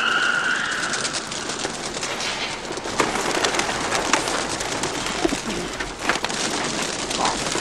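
Pigeons taking off in a flock, a dense, fast flutter of wing claps. A high squeal dies away in the first second.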